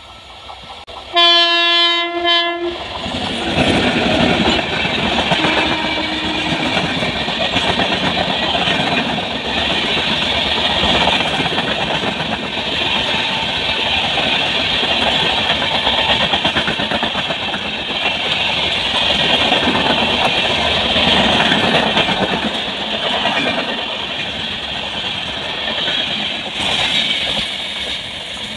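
Air horn of a WAP-7 electric locomotive sounding one steady note for about a second and a half, followed by the train of LHB coaches passing at speed: a loud, steady rush of wheels on rails that eases off slightly near the end.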